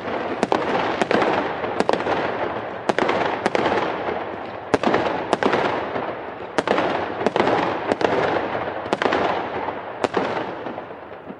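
Firecrackers going off in a continuous crackle, with sharper, louder bangs about once a second, slowly dying down toward the end.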